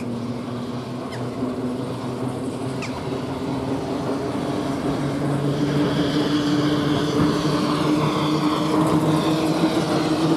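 00 gauge model Sentinel shunter running on its track, its small electric motor humming and the wheels rolling on the rails as it pulls away. The hum climbs slightly in pitch and grows louder, with a couple of faint clicks about a second in and again near three seconds.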